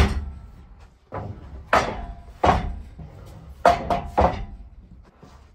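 Freshly sawn boards knocking against each other and the sawmill bed as they are lifted and set down: about seven sharp wooden knocks, several in quick succession.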